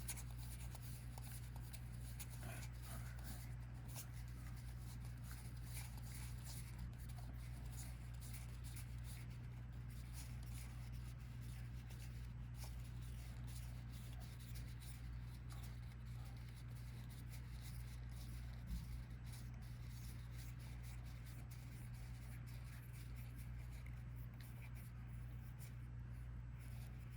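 Trading cards being recounted by hand, laid down one by one with faint soft flicks and rustles, over a steady low hum.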